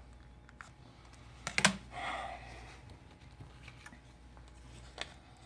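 A few sharp clicks and taps of a phone and small tools being handled on a workbench, loudest about one and a half seconds in, followed by a short scraping rustle and another click near the end.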